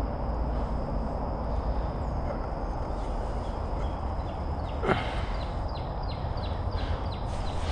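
Steady outdoor rushing noise with a low rumble and a thin, steady high whine. About five seconds in, a bird gives a sharp call, then a run of quick descending chirps, about three a second.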